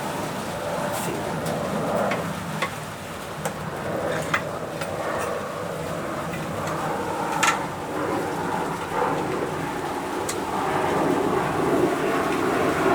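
Steady heavy rain hissing on the workshop roof, with scattered sharp clicks and knocks as metal motorcycle parts are handled and fitted.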